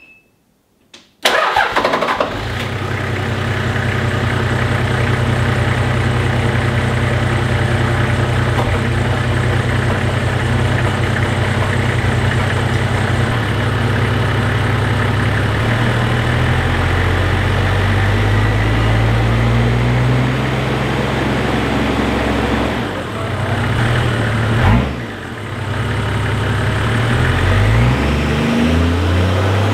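Toyota 1HZ 4.2-litre six-cylinder diesel starting about a second in, its first start after a turbo install, and running loud with only a dump pipe on the turbo for exhaust. In the second half the revs rise and fall a few times.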